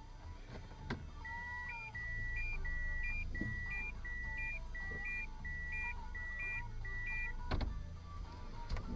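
Electronic alert beeps from a dashcam–radar detector combo, repeating about nine times: each a longer lower tone followed by a short higher blip, over the low rumble inside a moving car, with a thump near the end.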